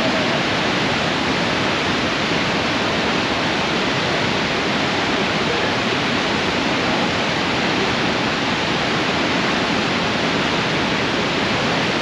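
Niagara Falls' falling water: a loud, steady rush of water that does not let up.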